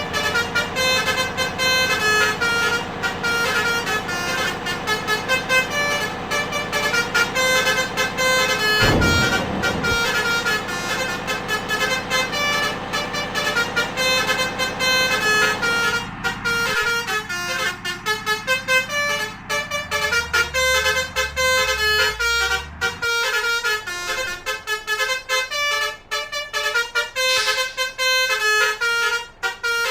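Bus's basuri multi-tone musical horn (telolet horn) playing a fast melody of short tooted notes, over the low rumble of vehicles on the road.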